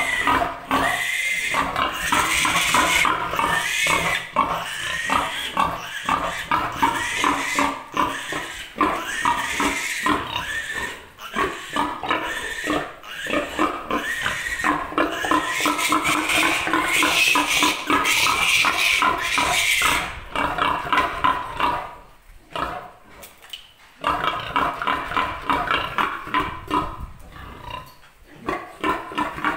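Piglet squealing over and over while held and restrained for an iron injection. The squealing is nearly continuous, then breaks off into short pauses about two-thirds of the way through and again near the end.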